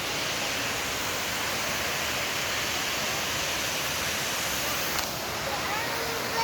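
Waterfall rushing steadily, close up, with a single sharp click about five seconds in.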